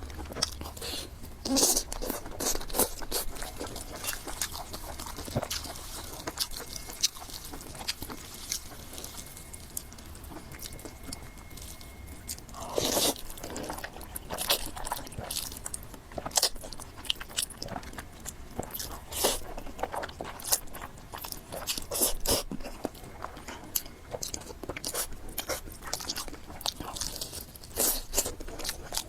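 Close-miked eating: a person chewing and biting food, with crunching and irregular wet clicking mouth sounds throughout.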